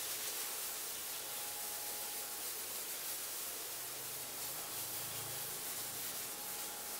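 Steady hiss of background noise with a faint low hum; no distinct sound stands out.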